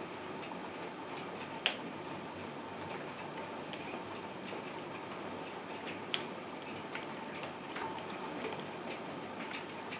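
Steady rain with scattered, irregular ticks of drops tapping on a hard surface. Two sharper taps stand out, just under 2 seconds in and about 6 seconds in.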